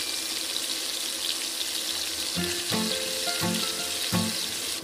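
Hot oil sizzling steadily as breadcrumb-coated chicken gizzards deep-fry. From about halfway through, light plucked-string background music plays over it.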